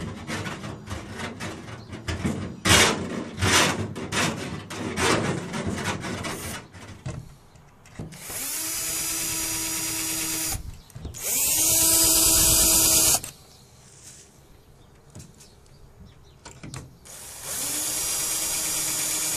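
Cordless drill boring into a white plastic fan cover, in three short runs of a couple of seconds each, the motor whirring up to speed at the start of each run. Before the runs come several seconds of irregular knocks and scraping.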